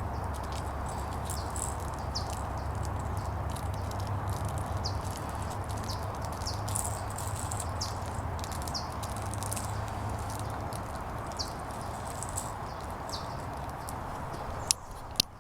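Light, scattered ticking and pattering of small puppy claws on a hard floor over a steady background hiss and hum, with two sharp clicks near the end.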